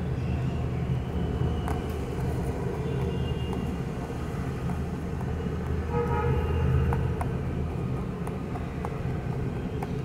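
A steady low rumble with a higher pitched note swelling briefly about three seconds in and again around six to seven seconds in. Faint sharp crunching clicks of a rabbit chewing a hand-fed treat are scattered through it.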